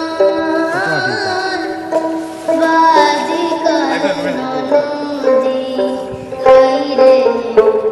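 Background music with a melody over held notes.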